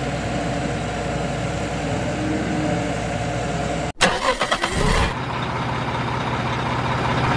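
Engine running steadily at idle. It cuts out abruptly about four seconds in, followed by a second of short irregular noises, then a different, lower steady engine hum.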